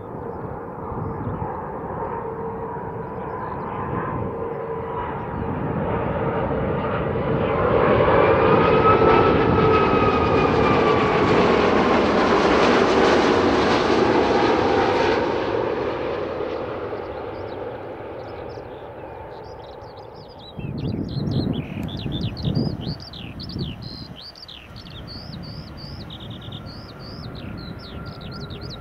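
Airbus A330-200 with Rolls-Royce Trent 700 turbofans passing low overhead on final approach: the jet noise with a steady whine swells to a peak about a third of the way in, holds for several seconds, then fades as it goes away, with a few low rumbling gusts trailing after. Small birds chirp near the end.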